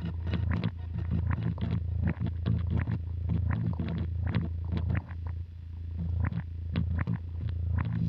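Electric guitar played through the Line 6 HX Stomp's Glitch Delay: a steady low drone broken up by rapid stuttering, chopped fragments and clicks, several per second.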